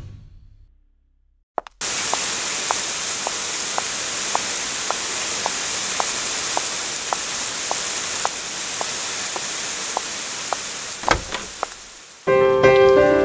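Steady rain hiss with a water drip plinking at an even pace, about twice a second. A sound fades out at the start, then comes a moment of silence before the rain starts. Near the end, music with keyboard-like notes comes in.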